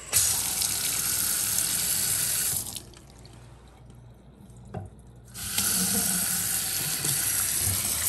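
Water running from a Moen 7864SRS single-handle pull-down kitchen faucet and splashing into a stainless steel sink, on its first test after installation. The flow is shut off about two and a half seconds in; after a light click it comes back on a little past the halfway point and runs steadily.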